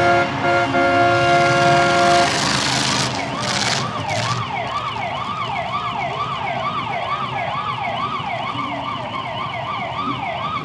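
A horn sounds steadily for about two seconds, then an emergency siren yelps rapidly up and down, about two and a half sweeps a second, until the end. The siren is the stop alarm after a car has rolled over in the figure 8 race.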